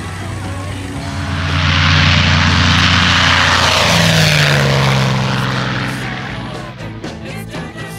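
P-51 Mustang's piston engine and propeller passing in a low flyby: the sound swells about a second in, stays loud for several seconds with its pitch dropping as the aircraft goes by, and fades near the end.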